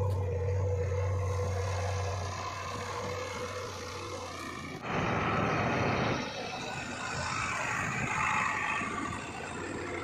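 JCB 3DX backhoe loader's diesel engine running steadily. Just before halfway the sound changes abruptly to a louder, rougher noise, then carries on as rougher engine noise.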